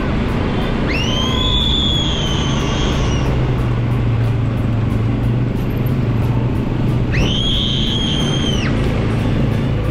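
Background music with a steady ticking beat and a whistle-like melody: two long notes that slide up, hold, then fall away, over a steady low hum.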